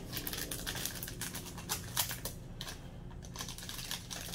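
Small plastic jewelry packets being handled, with quick, irregular light clicks and a little crinkling.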